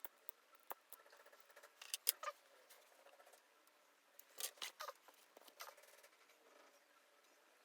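Faint, scattered clicks, snips and scrapes of small tools and thin wires being handled, with louder bursts about two seconds in and again around four and a half seconds in.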